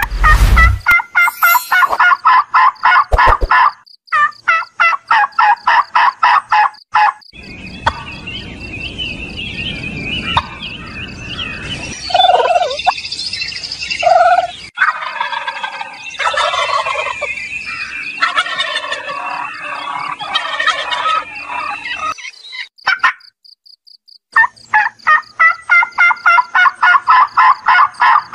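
Domestic turkey toms gobbling in long, fast rattling runs. In the middle the gobbling gives way to softer, mixed calls.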